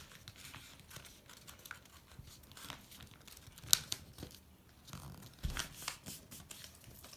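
A sheet of paper being folded and creased by hand into a paper airplane: scattered soft rustles and crinkles, with one sharp crackle a little past the middle.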